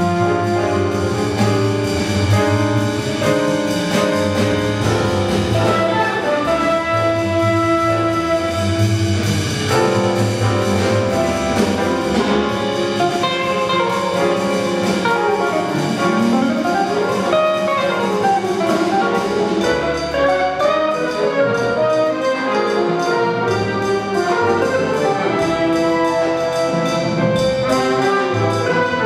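Live jazz septet playing: trumpet, alto and tenor saxophone carry the melody together, with held notes, over walking upright bass, drum kit with cymbals, electric guitar and piano.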